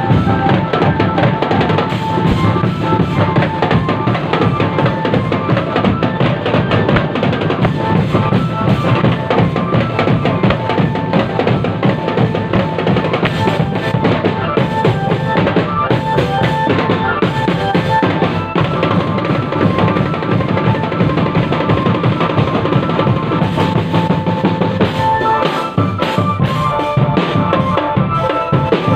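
Indonesian marching drumband playing: bass drums and snare drums beating a steady, dense rhythm under a repeated high melody line, which changes about 25 seconds in.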